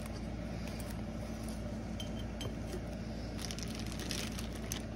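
Light handling noises over a tabletop: small clicks and clinks against glass jars, and a short rustle of plastic bags and artificial flower stems near the end, over a steady low background hum.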